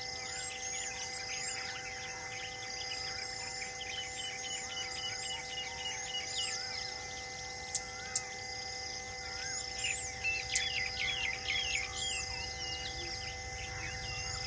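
Many wild birds calling and chirping over one another, with a denser run of rapid chirps about ten to twelve seconds in, over a few steady held tones. Two sharp clicks about eight seconds in.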